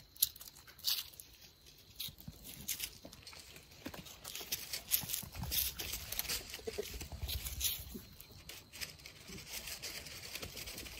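Irregular crunching and rustling of feet and small goat hooves scuffing on dry, leaf-strewn dirt, in scattered soft clicks.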